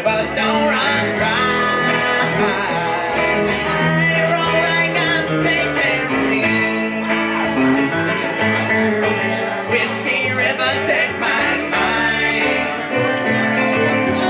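Live country band playing an instrumental passage between verses: electric guitar, upright double bass and acoustic guitar together, with no words sung.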